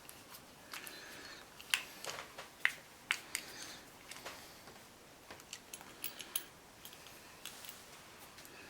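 Irregular small clicks and taps of plastic and metal model-kit parts and tiny screws being handled and fitted together, a dozen or so sharp ticks spread unevenly, thinning out near the end.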